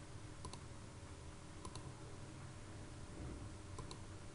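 Computer mouse button clicked three times as line points are placed in a CAD sketch, each click a quick pair of ticks (press and release), over a faint steady hum.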